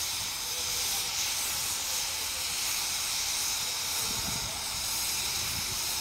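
Steam ploughing engine letting off steam in a steady hiss, with a low rumble underneath.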